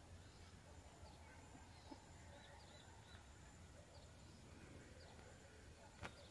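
Near silence: faint outdoor ambience with scattered short, faint bird chirps and a single sharp click about six seconds in.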